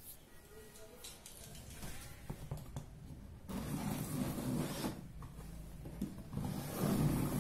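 Large scissors scraping along and cutting the packing tape on a cardboard box, in two stretches of scraping noise: one starting about three and a half seconds in and another near the end.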